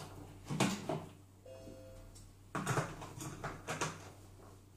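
Plastic lid of a Monsieur Cuisine Connect food processor being fitted and locked onto its stainless bowl, with several knocks and clunks, and a short electronic beep from the appliance about a second and a half in as the lid locks. A second run of clunks follows as the cap is pushed into the lid.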